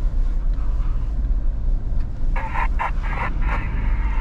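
Maruti Suzuki Jimny's 1.5-litre four-cylinder petrol engine and tyres working over a rocky riverbed, heard from inside the cabin as a steady low rumble. A higher, scratchy noise comes and goes twice in the second half.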